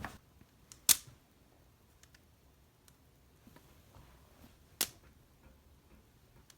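Three sharp, isolated clacks from handling a 5x5 Rubik's cube, the loudest about a second in and another near five seconds, with little in between.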